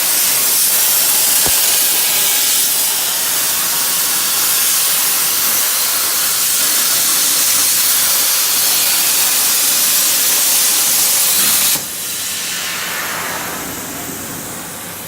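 CNC plasma cutter torch cutting steel sheet: a loud steady hiss that cuts off suddenly about twelve seconds in, leaving a quieter hiss that fades away.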